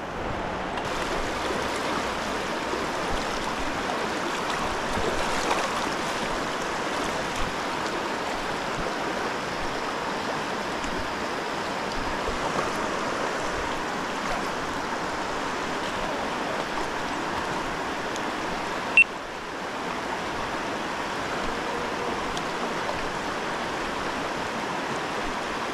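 Steady rush of a flowing river current, with a single sharp click about 19 seconds in.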